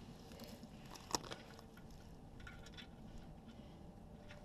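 Faint clicks and scraping of a sway-bar quick-disconnect end link being handled onto its mounting stud, with one sharp metallic click about a second in.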